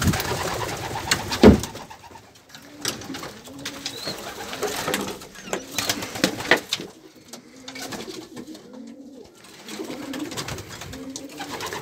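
Racing pigeons cooing over and over in a small wooden loft, with scattered clatter and a sharp knock about a second and a half in.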